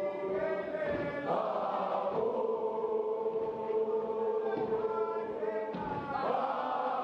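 A choir of schoolboys singing a gwijo, a South African communal chant-song, in long held notes. The phrase changes about a second in and again near the end.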